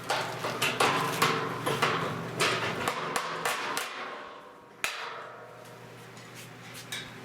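A string of sharp knocks, a tool striking metal hardware, roughly every half second for about three seconds. One lone sharp click comes near five seconds in.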